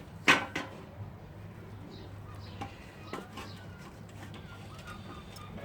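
Handling noise as stiff nylon fishing line is pushed through a pleated fly screen's frame profile: one sharp click near the start, then a few light ticks and faint squeaks, over a steady low hum.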